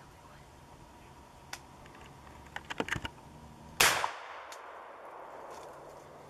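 A single 12-gauge shotgun shot about four seconds in, sharp and loud, its echo fading over about a second and a half. A few small clicks come just before it.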